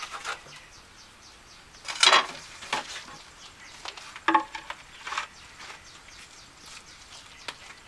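A few scattered clinks and short scrapes of hard objects striking and sliding against each other, the loudest about two seconds in, with smaller ones over the next few seconds.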